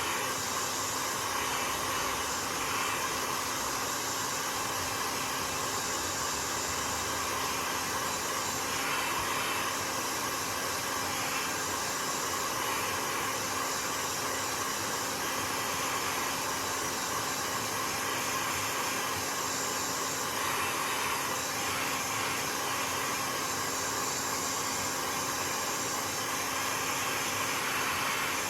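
Hot air gun blowing steadily at a middle setting, a continuous rush of air with a steady motor hum beneath it, used to heat a phone's back glass.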